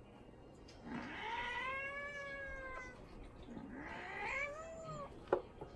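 Domestic cat giving two long, drawn-out meows, the first about two seconds long and the second shorter, rising then falling, while two cats play-wrestle and one bites the other. A sharp knock comes near the end.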